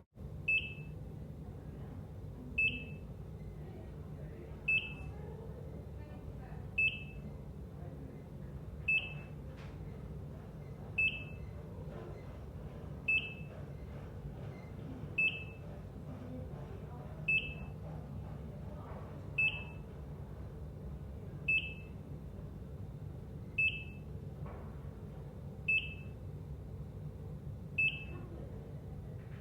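Heart monitor (ECG) beeping: a short, high-pitched beep about every two seconds, each beep marking a heartbeat, over a steady low hum.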